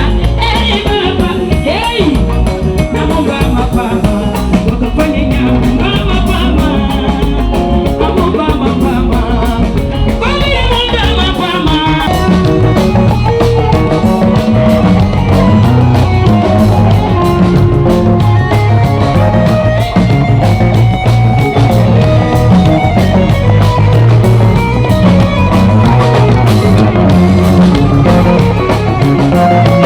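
Loud music with a singing voice over a steady band backing; the bass and drum pattern changes about twelve seconds in.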